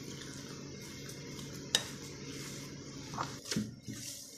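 Hands kneading raw beef chapli kabab mince with chopped tomatoes in a glass bowl, with a sharp click against the glass about two seconds in and a few softer knocks near the end.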